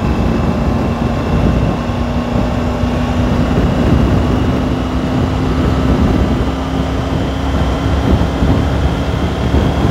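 Triumph Tiger 900 Rally Pro's three-cylinder engine pulling on the highway, its tone climbing slowly as the bike gains speed, until it fades out about eight seconds in. Heavy wind rumble on the microphone runs under it.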